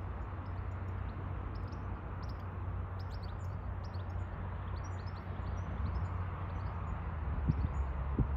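Small birds chirping again and again over a steady low rumble, with a couple of brief low thumps near the end.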